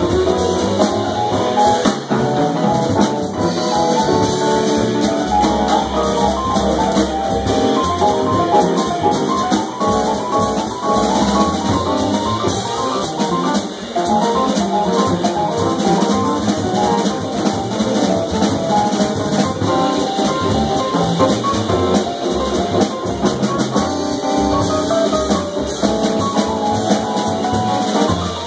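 Live jazz: a stage keyboard plays a solo in runs of short notes over upright bass and drum kit, with the tenor saxophone silent.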